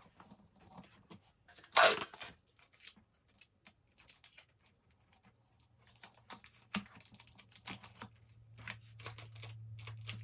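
Clear tape ripped off the roll in one loud tear about two seconds in, followed by small clicks and crinkles of tape and packaging being handled. A low steady hum comes in about halfway and grows louder.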